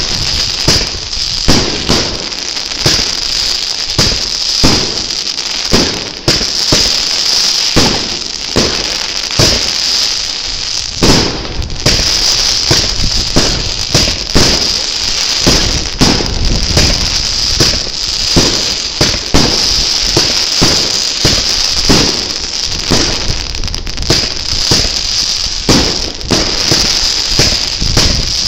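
Weco Coroner firework battery, two cakes fired as a fan, shooting in steady succession with a loud bang about once a second. Between the bangs there is a dense, continuous crackling and fizzing from the bursting stars.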